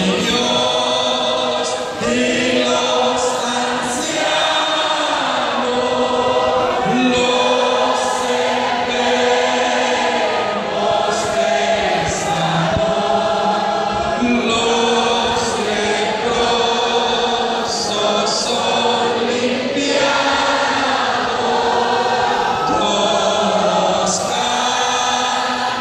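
A congregation singing together, many voices in long held notes that move in phrases.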